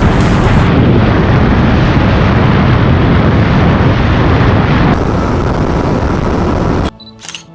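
Heavy wind rushing and buffeting over a camera microphone on a motorcycle ridden at speed, with the engine buried beneath it. About seven seconds in it cuts off suddenly, leaving only faint quiet tones.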